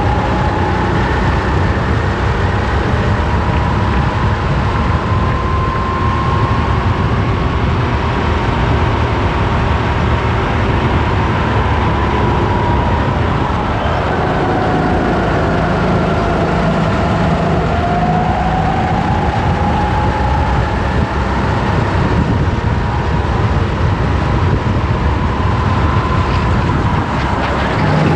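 Onboard sound of a rental racing kart's engine running hard at racing speed, with a loud rush of noise over it. Its whine drops as the kart slows for a corner about halfway through, then climbs again as it accelerates.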